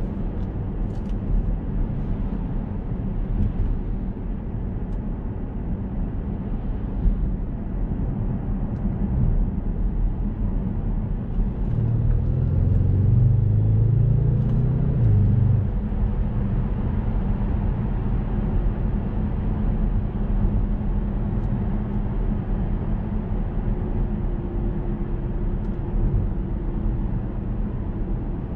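Audi S6's 4.0 TFSI twin-turbo V8 and tyre and road rumble heard from inside the cabin while driving at moderate speed. About twelve seconds in, the engine note swells for roughly three seconds as the car picks up speed, then settles back to a steady cruise.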